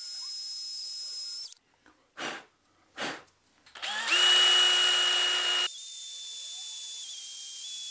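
DeWalt cordless drill drilling through holes in the crank pulley into the crankshaft nose. A steady motor whine stops about a second and a half in, then comes two brief trigger blips. About four seconds in a louder run starts, and it changes at once into another steady run.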